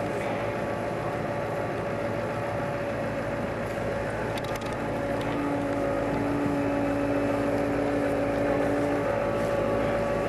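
Bradley fighting vehicle's Cummins V8 turbo-diesel running steadily close by, with a level whining tone over the engine noise; it grows a little louder about halfway through.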